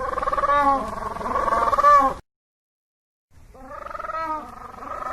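Penguins calling: loud, pulsing, braying cries with a rise and fall in pitch. One bout runs for about two seconds, then cuts off dead, and a second bout starts about a second later.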